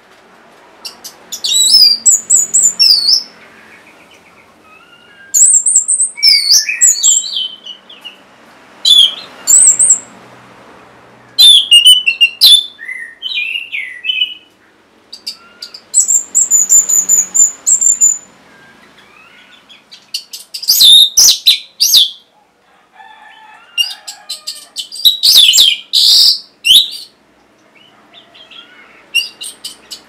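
Orange-headed thrush singing: about eight short bursts of varied, high whistled phrases, a few seconds apart.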